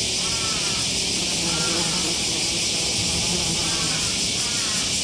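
Bembix sand wasp buzzing in low flight over sand, a low hum that comes and goes, over a steady high hiss.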